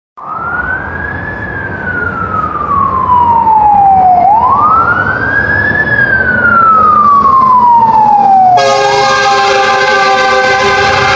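Fire engine siren wailing as the truck approaches: it rises quickly and falls slowly, twice, getting louder. About eight and a half seconds in, a loud steady horn blast from the truck joins the siren and holds to the end.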